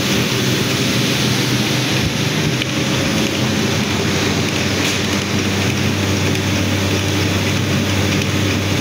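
Mustard oil expeller running steadily as it presses seed, a loud even mechanical din with a low hum that grows stronger about halfway through.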